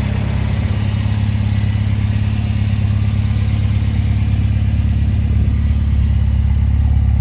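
Alfa Romeo 1600 Duetto's 1570 cc twin-cam four-cylinder idling steadily, growing slightly louder toward the end.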